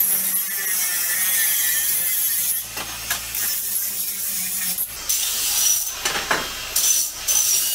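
Angle grinder grinding the plasma-cut edge of a steel strip to straighten it, its whine wavering as the disc bites. The grinding breaks off briefly a few times as the disc is lifted and put back on the edge.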